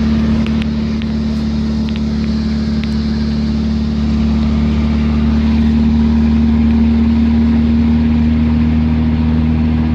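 Truck engine and road noise while driving at a steady pace, a constant low hum that grows slightly louder about five seconds in.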